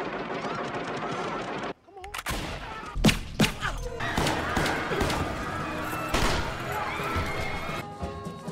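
Film soundtrack gunfire: rapid automatic fire for the first second and a half or so, a sudden break, then several sharp, loud single shots about two to three and a half seconds in, followed by tense film music with wavering voices.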